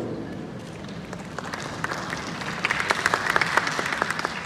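Audience applauding in a hall. It starts with a few scattered claps and swells to a full round of clapping about three seconds in.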